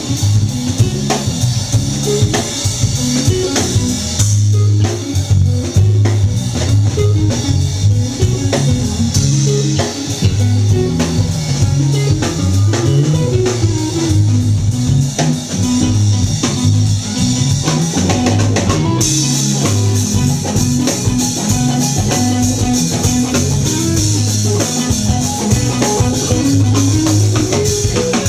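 Live rock band playing loud: electric guitar, bass guitar and drum kit, with the cymbals dropping back for a stretch in the middle.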